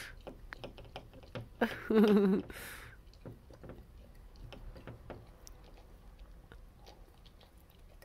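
Beagle lapping milk from a small plastic cup: a run of irregular wet tongue clicks and slurps. A short vocal sound stands out about two seconds in.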